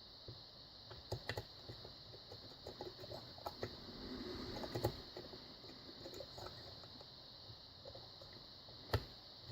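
Faint small metallic clicks and scrapes of a lock pick and tension wrench being worked in the keyway of an AGB dimple lock, the pick stuck after a false set. The clicks come in scattered clusters, with a short run of scraping about four to five seconds in and one sharper click near the end.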